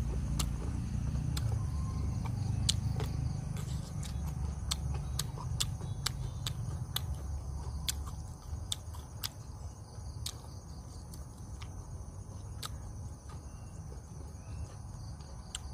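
Someone chewing grilled squid close to the microphone: irregular sharp clicks over a low rumble that eases off about halfway through. Crickets trill steadily in the background.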